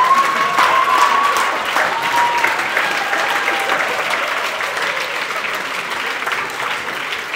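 Audience applauding, dense clapping that is loudest in the first second or two and then eases off a little, with a high drawn-out voice calling out over it near the start.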